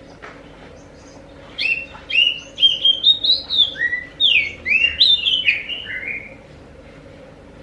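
Oriental magpie-robin (kacer) singing one phrase of varied, slurred whistled notes, each sliding up or down. The phrase starts about a second and a half in and stops around six seconds in.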